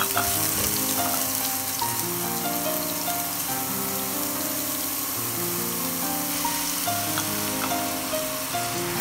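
Diced apple frying in oil in a non-stick pan, a steady sizzle, over background music with a simple melody of held notes.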